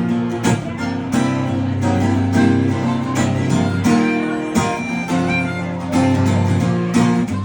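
Acoustic guitar strumming the instrumental intro to a country song, before the vocal comes in.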